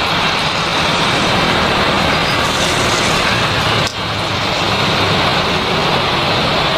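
Airbus A320-214 jet airliner with CFM56 turbofans running on its takeoff run in heavy rain: a loud, steady rushing roar with a low hum beneath it, dipping briefly a little past halfway.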